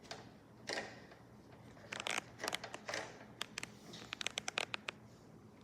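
Hands working on a robot vacuum's roller brush and its plastic housing: scratchy, crinkly rubbing noises, then a quick run of small clicks about three and a half seconds in.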